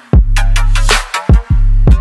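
Electronic music track with a heavy, sustained bass and punchy kick-drum hits that fall in pitch, coming back in after a brief drop-out at the start.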